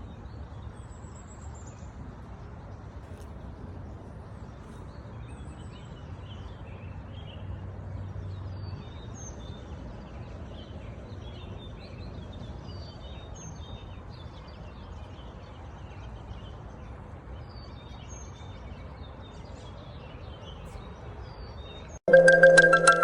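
Outdoor ambience: many small birds chirping over a steady low rumble of background noise. About a second before the end it cuts suddenly to loud marimba music.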